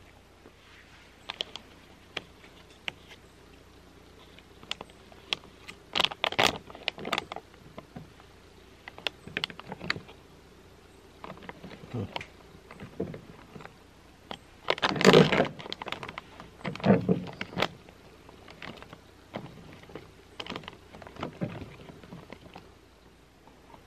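Crinkling and rustling of a foil-lined freeze-dried meal pouch being torn open and handled, in scattered bursts. The loudest burst comes about halfway through.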